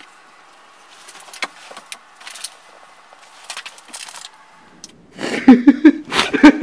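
Faint rustling and a few light taps, then about five seconds in a sudden burst of loud voices that carries on.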